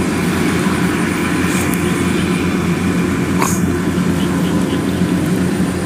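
Kubota DC108X rice combine harvester running steadily while cutting: a steady diesel engine drone with the threshing machinery, and a brief click about three and a half seconds in.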